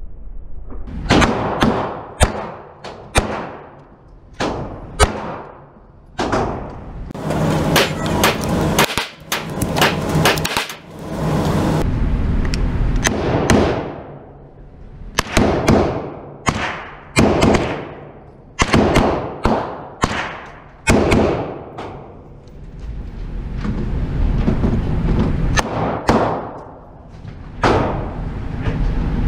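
9mm gunshots echoing in an indoor range: a Glock 22 Gen4 converted to 9mm and a 16-inch AR-9 pistol-caliber carbine fired in strings, each shot sharp with a ringing tail. Shots come about a second apart, with a quicker cluster a third of the way through.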